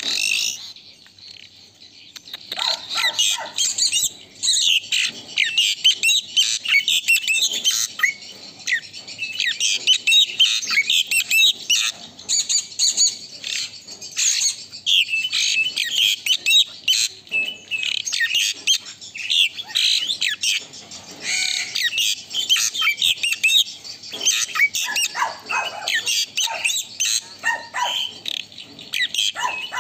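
Asian pied starling singing a long, fast run of chattering, whistled and squeaky notes, almost without pause after a short lull at the start.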